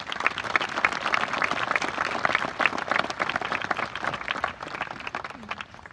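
Crowd applauding, with many individual hand claps close by standing out sharply; the clapping dies away near the end.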